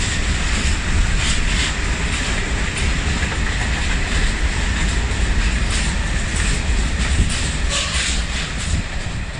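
Container wagons of a freight train rolling past on the track: a steady, loud rumble with repeated wheel clacks.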